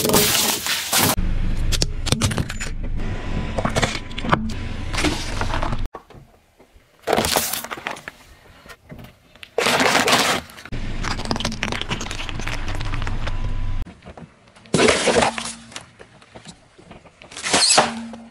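A car tyre rolling over and crushing a run of small objects: plastic jars of water beads, paper cups and a foil-wrapped item. There are about half a dozen sudden cracking and crunching bursts, some over a low rumble from the rolling car.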